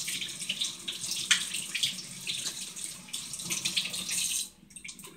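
Kitchen faucet running into a stainless steel sink while hands are rinsed under the stream, with irregular splashing. The water is shut off about four and a half seconds in.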